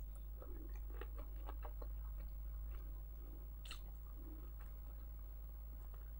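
A person chewing a bite of salted beef with garlic: soft, wet mouth clicks, busiest over the first three seconds, over a faint steady low hum.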